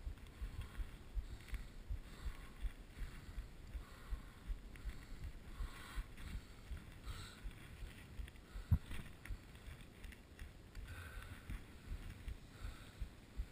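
Skis running down a snowy slope, heard through a GoPro HD2 camera on the skier as a low, uneven rumble of rapid thuds with a faint hiss, and one sharper knock about nine seconds in.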